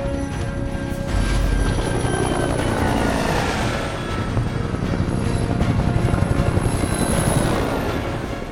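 Low-flying helicopters passing close, their rotor blades chopping in a rapid pulse over a heavy engine rumble that swells about a second in, with a film score underneath.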